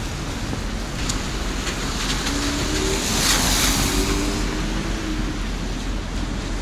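Street traffic on a wet road, with a car passing close about three seconds in, its tyres hissing loudly on the wet asphalt as it goes by.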